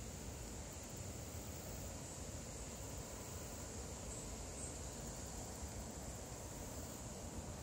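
Faint outdoor ambience: a steady low rumble and a thin, steady high-pitched hiss, with no distinct events.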